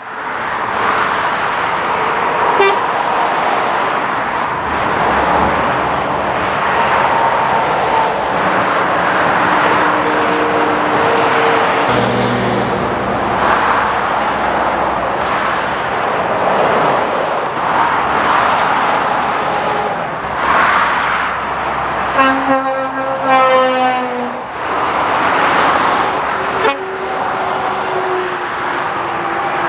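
Lorries and cars passing one after another on a dual carriageway, with steady tyre and engine noise that swells as each one goes by. About two-thirds of the way through, a vehicle horn sounds for about a second and a half.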